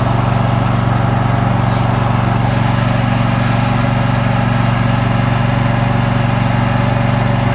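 Riding lawn mower's engine running steadily while the mower is driven along, a loud, even drone.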